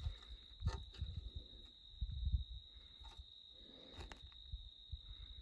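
Crickets trilling steadily on one high note, with low rustling and a few light knocks as elk shed antlers are picked up and handled.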